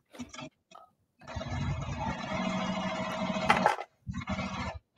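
Sewing machine stitching in two runs: a steady run of about two and a half seconds starting just over a second in, then a brief second burst near the end. A few light clicks come before the first run.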